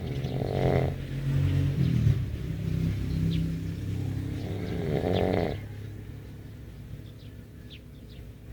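Snoring in a slow rhythm: a noisy snore at the start and another about five seconds in, with a low steady hum between them.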